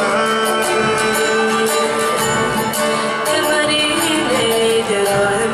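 Live Cook Islands music: singing with held notes over strummed guitar and ukulele, with a steady beat.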